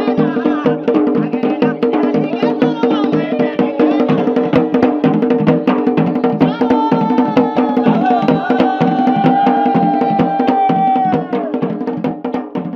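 Garhwali dhol drum played fast with a stick and the bare hand, mixed with band music: steady held tones under a sliding melody line. The music fades near the end.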